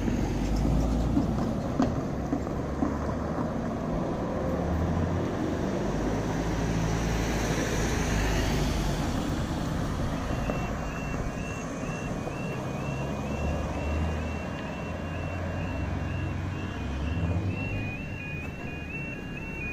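Road traffic running past the crossing, one vehicle passing by about eight seconds in. About ten seconds in, the level crossing's new electronic warning alarm starts: a high tone stepping back and forth between two pitches and repeating, signalling that a train is coming and the barriers are about to lower.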